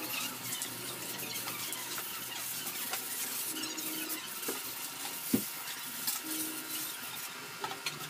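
Light clicks and small rattles of hands working on a sport bike's plastic bodywork and fasteners, with one sharper knock about five seconds in, over a steady hiss.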